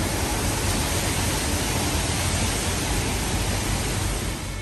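Steady, even rushing noise with a low rumble underneath, holding constant and stopping abruptly at the end.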